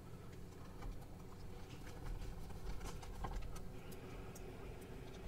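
Faint small clicks and ticks of a small screwdriver and tiny screws being handled while refitting a laptop's base-cover screws, scattered irregularly over a low steady hum.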